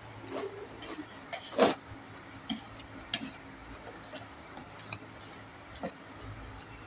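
Close-up eating sounds: chewing, with scattered sharp irregular clicks, the loudest about one and a half seconds in.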